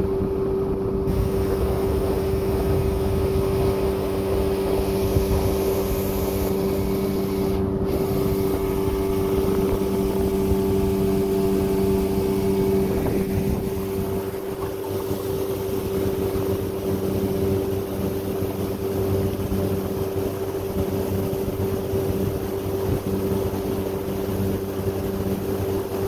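A small boat's motor running at a steady speed, a constant hum with a low rumble of water and hull beneath it.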